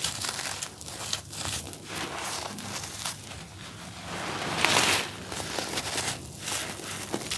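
Hands crumbling dry, grainy charcoal-powder cakes, the powder and small lumps rustling and pattering as they sift through the fingers onto loose powder. A louder, longer gritty rush swells about four to five seconds in.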